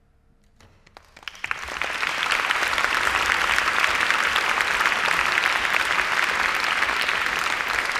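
Audience applauding: a few scattered claps about a second in, swelling within half a second into steady, full applause.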